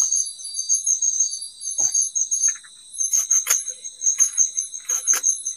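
A chorus of night insects, crickets or similar, chirping in rapid high-pitched pulses at several pitches. Soft rustles of fresh leaves being stripped by hand come through from about halfway in.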